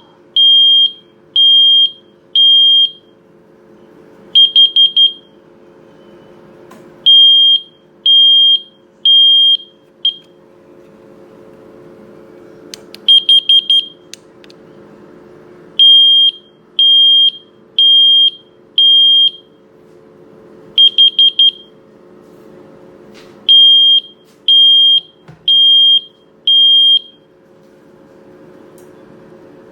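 Combination smoke and carbon monoxide alarm sounding its piercing high beep: a run of three to four long beeps, then a quick burst of four short beeps, the cycle repeating about every eight seconds. A faint steady hum lies underneath.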